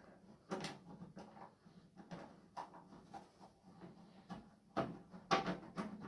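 iFixit driver with a Phillips PH2 bit turning a tight screw out of a microwave's metal casing: a faint, irregular run of short clicks and scrapes as the bit grips and turns, loudest near the end.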